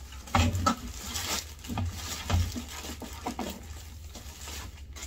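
Clear plastic bag crinkling and rustling as a large plastic toy figure is pulled out of it: short, uneven crackles every half second or so, with soft low bumps from handling the figure.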